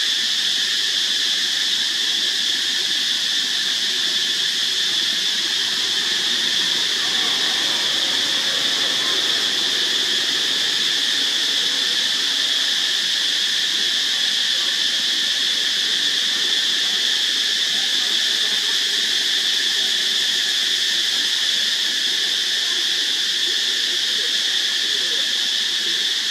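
Steady insect chorus, a continuous high-pitched drone that does not change, with a few faint short squeals from young long-tailed macaques.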